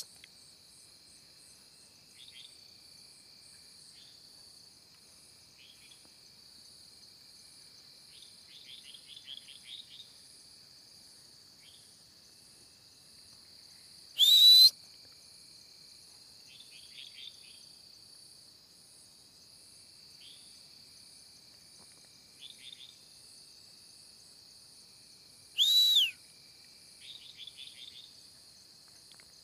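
Night insects, crickets and the like, shrilling in a steady high drone with a regular pulsing chirp. Two short, loud whistles come about halfway through and again near the end, and faint high chirps are scattered in between.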